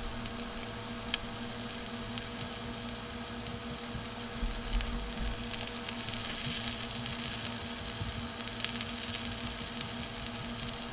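Breaded mangrove snapper fillets pan-frying in shallow oil: a steady sizzle with dense fine crackling of popping oil.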